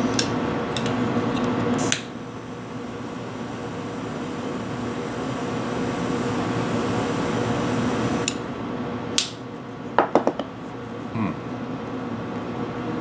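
Butane jet-flame (torch) lighter lit with a click about two seconds in, hissing steadily for about six seconds while a cigar is lit, then cutting off. A few sharp clicks follow.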